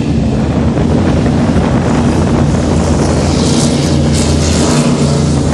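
Engine hum of the Santa Maria, a sightseeing boat built as a replica sailing ship, as it moves past close by, with wind buffeting the microphone. A hissing rush swells for a second or two past the middle.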